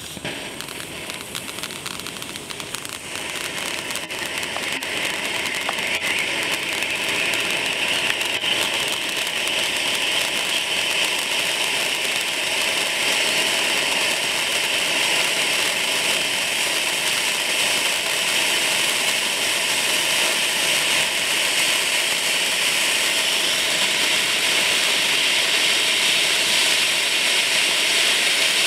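Royal Fireworks Hurricane cone fountain firework burning, its jet of sparks giving a steady hiss. The hiss builds over the first five or six seconds as the fountain comes to full height, then holds.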